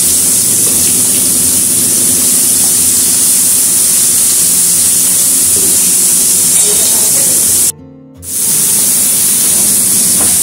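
Background music over a steady sizzle of chopped onions frying in oil in a kadhai. All sound drops out for about half a second roughly three-quarters of the way through.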